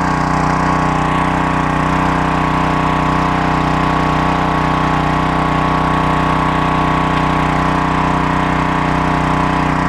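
Gas-engine 3000 psi pressure washer running at a steady, constant speed.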